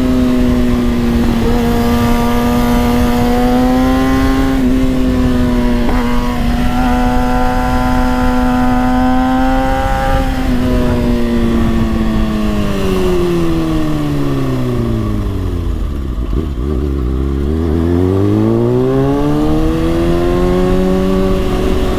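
Kawasaki ZX-6R 636 inline-four engine running under way at a steady high pitch, then winding down smoothly as the bike slows about ten seconds in, and pulling back up in pitch as it accelerates near the end, with wind noise throughout.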